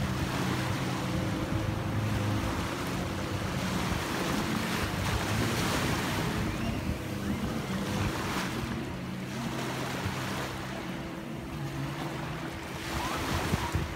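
Jet ski engines droning steadily over waves washing and wind buffeting the microphone. The engine drone is strongest in the first half and weaker later, as the riders head out across the choppy sea.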